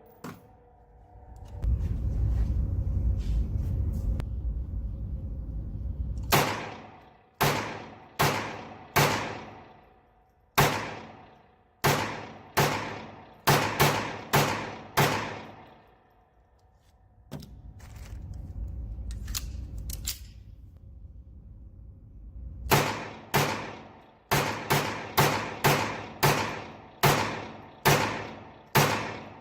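Two strings of semi-automatic gunshots, each shot sharp with a ringing tail: about eleven irregularly spaced shots, then after a pause about a dozen in quicker succession near the end. A low rumbling noise fills the gaps before and between the strings.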